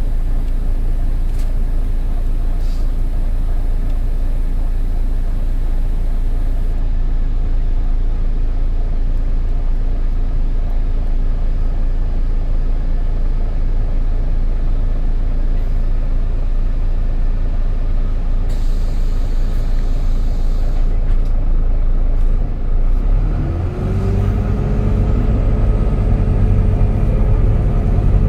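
Volvo B9TL double-decker bus's diesel engine running steadily. About 23 seconds in it picks up and grows louder, and a whine rises in pitch and then holds: the vacuum-cleaner-like whine that gives these buses the nickname "Hoover".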